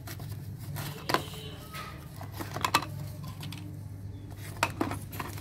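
Plastic toy food and play dishes clicking and clattering as they are handled and put into a small box toy oven: a few sharp taps about one, three and five seconds in, over a steady low hum.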